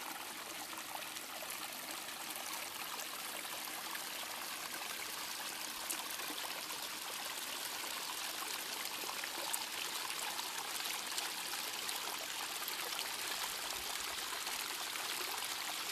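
Steady rush of running water, an even hiss with no changes.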